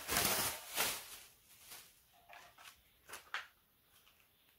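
Plastic wrapping crinkling as the wrapped grill is handled, loudest in the first second, then fainter rustling with a couple of sharp clicks about three seconds in.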